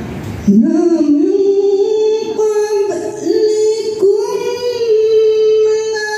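A woman's solo voice chanting a recitation through a microphone and loudspeakers, starting about half a second in with long, held melodic notes broken by short pauses for breath.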